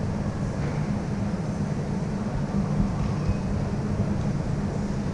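Steady low rumble of a Boeing 737-800 heard from inside the cabin, with an even hiss above it.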